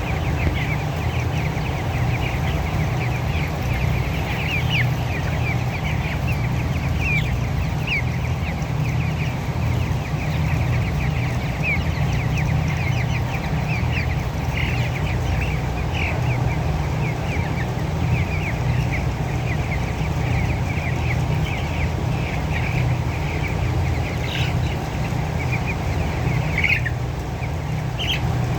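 A large flock of chickens in a poultry house calling all at once: many short, high cheeps overlapping without pause, over a steady low hum.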